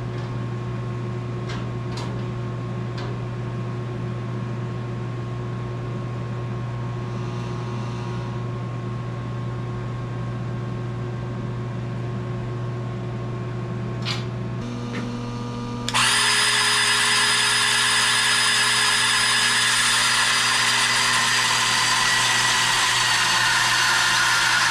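A steady machine hum with a few clicks. About two-thirds of the way in, a handheld power tool starts and runs steadily and loudly, with a high whine, to the end.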